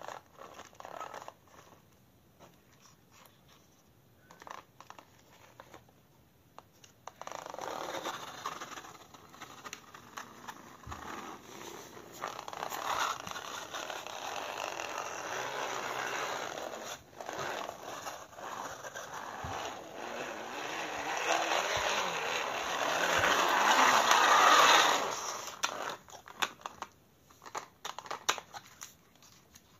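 A plastic wired-remote toy car running on a hard floor: a steady rasping scrape of its wheels and gears that starts about seven seconds in, grows louder, and stops abruptly near the end, followed by a few light plastic clicks.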